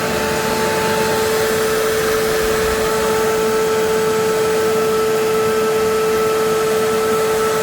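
Shop vac running steadily with a constant whine, drawing a vacuum on a jar to suck used oil out of a small engine through vinyl tubing. A fainter, higher tone joins the whine about three seconds in.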